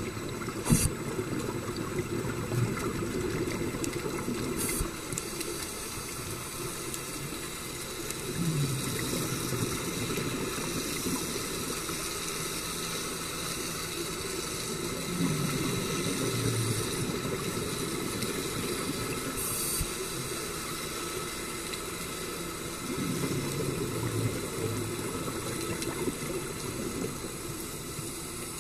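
Scuba diving heard underwater: a steady watery hiss, with three slow swells of low bubbling as a diver exhales through a regulator, about every seven seconds.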